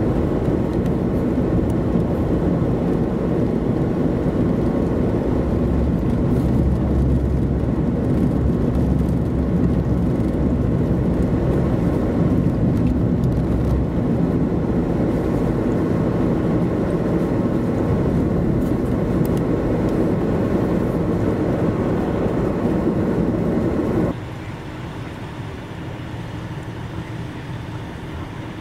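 Steady road noise and engine hum of a vehicle driving on a snow-covered highway, loud and unbroken. About 24 s in it cuts abruptly to a quieter steady hum.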